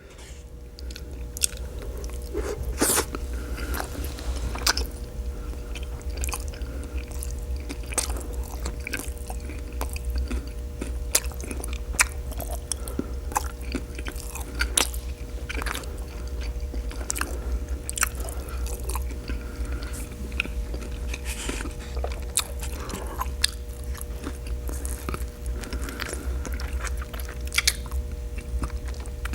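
Close-miked chewing and mouth smacking of a big bite of a broth-dipped birria beef taco with radish, with frequent wet clicks and occasional crunches.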